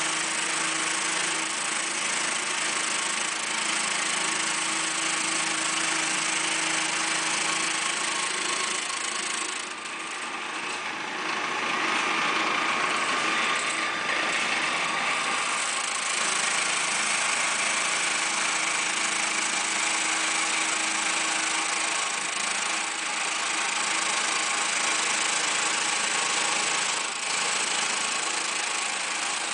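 Contec CT250 concrete grinder/planer (scarifier) running steadily with a constant hum. About ten seconds in the sound dips briefly, then turns harsher and higher for several seconds before settling back to its steady run.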